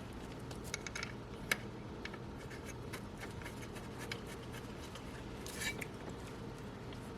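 Small metallic clicks and scrapes of a bolt and bracket being handled and fitted by hand, with one sharper click about a second and a half in and a short scraping rattle near the end, over a steady low hum.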